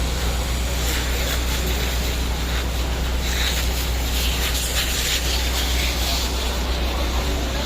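Steady low engine rumble with a broad hissing rush over it that swells in the middle seconds, typical of fire-scene ambience with vehicles running.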